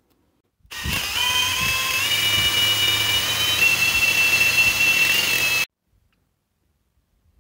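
Cordless drill running under load as its bit bores out a rounded screw in an angle grinder's gear housing. It gives a steady whine that steps slightly in pitch over the cutting noise, lasts about five seconds, then stops suddenly.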